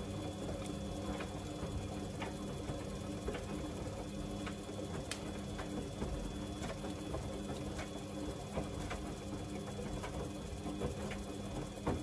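Samsung front-loading washing machine in its wash phase, the drum turning a wet load of dark clothes: a steady motor hum with water sloshing and scattered light clicks as the load tumbles.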